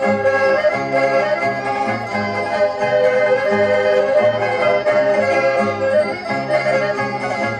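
Portuguese folk dance music played live, a sustained reedy melody carried by an accordion over a bass line that steps between notes in a steady dance rhythm.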